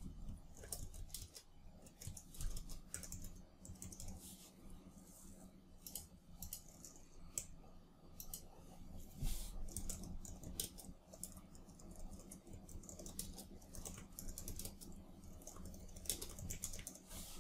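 Computer keyboard typing: faint, irregular runs of keystrokes with short pauses between them.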